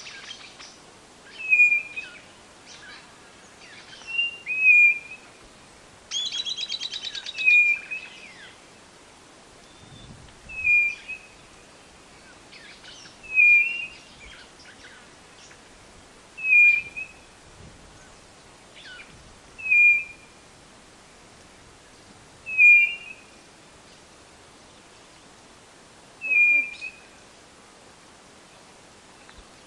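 White-bellied nothura (codorna-do-nordeste) calling: a short whistled note repeated about every three seconds. A rapid pulsed chatter comes in about six seconds in.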